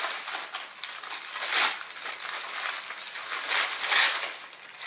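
Tissue paper crinkling and rustling as gifts are unwrapped by hand, with louder rustles about one and a half and four seconds in.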